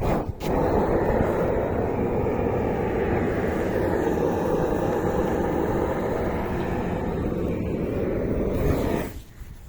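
Propane roofing torch burning steadily with a rushing flame noise, heating torch-on bitumen membrane; it starts with a short burst, settles to an even sound, and stops about nine seconds in.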